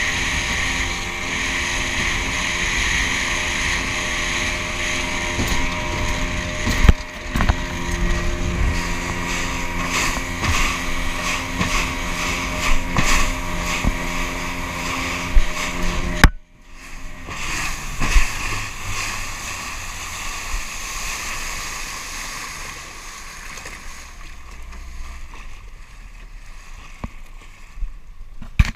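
A small motorboat's engine running at full speed, mixed with the hull knocking on the water and wind buffeting the microphone. About 16 seconds in, the engine sound cuts off abruptly, leaving quieter wind and water noise that fades toward the end.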